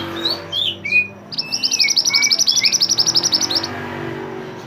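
A mantenan songbird singing: a few short whistled chirps and downslurred notes, then from about a second in a rapid, even trill of about ten high notes a second lasting a little over two seconds, before it breaks off.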